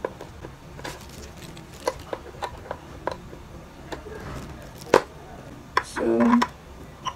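Scattered sharp plastic clicks and taps as a black plastic mount is fitted onto the back of a ring light by hand, the loudest click about five seconds in.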